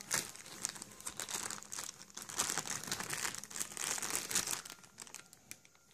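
Headphone packaging crinkling and rustling as it is handled, in irregular bursts that die down near the end.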